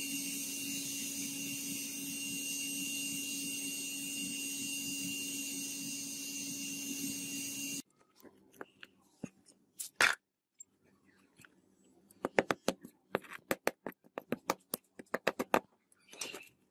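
A steady hiss with a low hum that cuts off suddenly about eight seconds in. Then comes a run of sharp knocks and cracks, thickest near the end, as tongs break open a freshly poured sand-casting mould.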